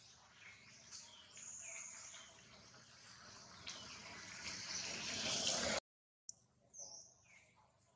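Several short, high, downward-sliding chirps or squeaks, with a hiss that grows louder until the sound cuts out abruptly about six seconds in; more sliding calls follow after the gap.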